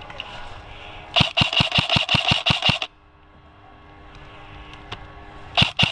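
Airsoft electric rifle firing in full-auto bursts: one burst of about ten rapid shots lasting under two seconds, and a second burst starting near the end, each shot a sharp click over a steady motor-and-gearbox whine.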